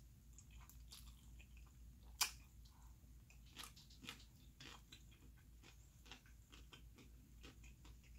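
Faint, close-miked chewing and biting of food, a string of soft wet clicks with one sharper click about two seconds in.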